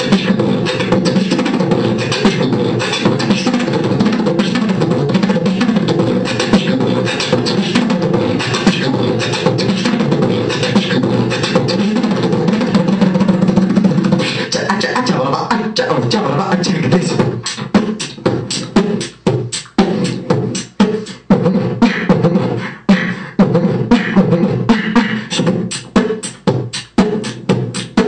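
Human beatboxing: vocal percussion imitating a drum kit. For the first half it is a dense, unbroken stream of sound over a steady low vocal tone; a little past halfway it changes to sharp, separate beat strokes, about three a second.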